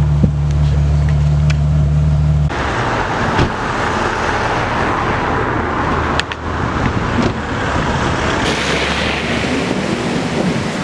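Ferrari F12tdf's V12 idling steadily. About two and a half seconds in, this gives way abruptly to quieter street traffic noise: a hiss of passing cars and tyres on the road.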